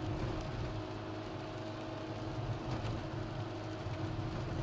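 Steady car-interior driving noise: engine hum and tyre noise on a wet road.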